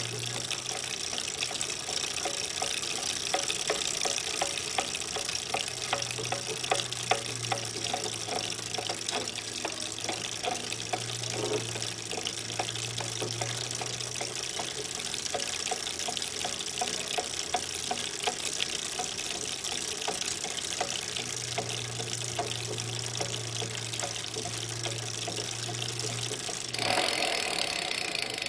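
A2B Metro G2 electric bike's drivetrain knocking repeatedly as it is pedaled, over a steady hiss and low hum. The knocks come only under pedaling, not when coasting or on throttle alone, and the owner suspects an under-lubricated stock freewheel. Near the end the noise grows louder and coarser.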